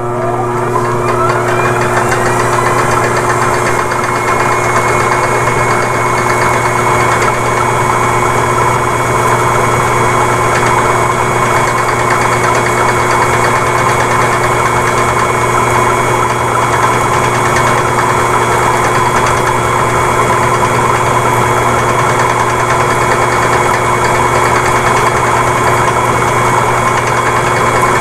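Electric motor of a Speedwinder AL-130 line winder spinning a spinning-reel spool to wind fishing line onto it. It spins up with a whine rising in pitch over the first two seconds or so, then runs at a steady speed.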